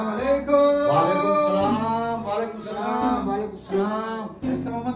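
A man singing unaccompanied, in long held notes that bend in pitch.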